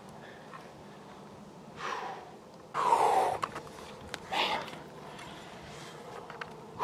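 A person breathing hard: about four gasping, sighing breaths, each falling in pitch, the loudest about three seconds in, with a couple of faint clicks between them.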